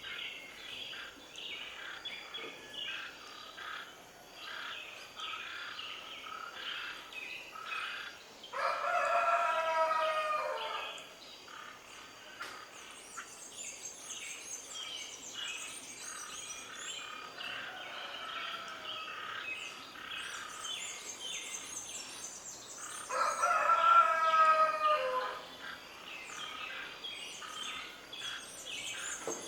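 Two long, loud bird calls about fourteen seconds apart, each lasting about two and a half seconds and dropping in pitch at the end, over constant chirping of smaller birds.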